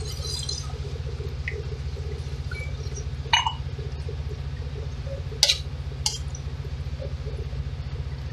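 Water poured from a mug into simmering tomato sauce in a metal wok, a brief hiss at the start; then a metal ladle stirring the sauce, clinking sharply against the wok three times, over a steady low hum.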